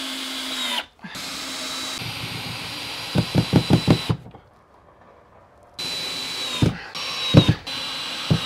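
Power drill running in three bursts as screws are driven to fix a bracket to a wall, with a high motor whine. A rapid series of knocks comes about three to four seconds in, and two more come near the end.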